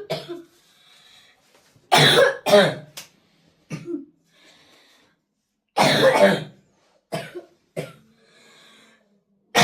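A child's coughing fit: bouts of two or three coughs every few seconds, with faint breaths drawn in between. These are the chronic coughing attacks that doctors have not been able to diagnose.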